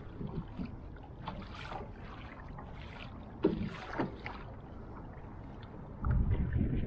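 Light chop slapping and splashing against a moving kayak's hull, a short splash every second or so. A louder low rumble sets in near the end.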